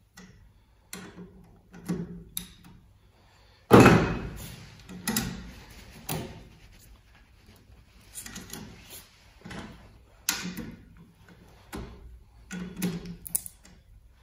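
Hand lever rivet tool, converted with a bolt to set threaded rivets, clicking and clunking as its handles are squeezed and released, with one sharp metal clank about four seconds in. The rivet nut is being compressed into the thin sheet a squeeze at a time.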